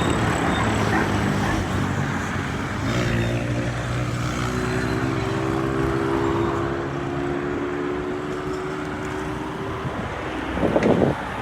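Wind rumbling on the microphone over traffic noise, with a vehicle engine's steady hum coming in about three seconds in and fading out after about six seconds.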